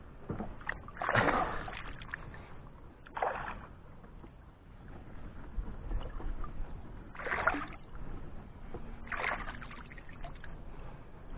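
River water splashing and sloshing in four short bursts as a fishing keepnet is handled in the water at the side of a small boat.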